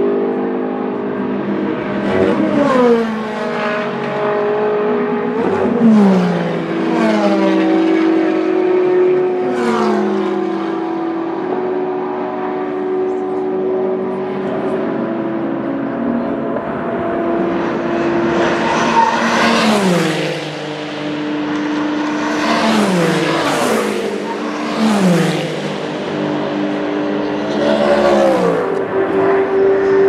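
Endurance race cars passing at speed one after another, about seven fly-bys, each engine note dropping sharply in pitch as the car goes by. Other cars' engines run steadily behind.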